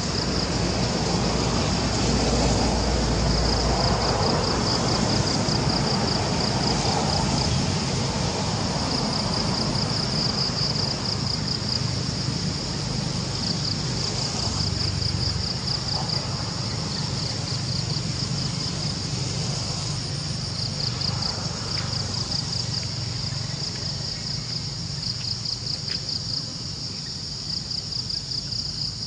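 Insects calling in a steady chorus, a high pulsing trill that never stops, over a low rumble that is strongest in the first few seconds.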